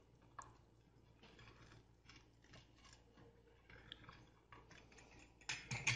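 Faint crunching and scraping of a pizza-cutter wheel rolling through a crisp-fried stuffed paratha, in several short strokes, the loudest near the end.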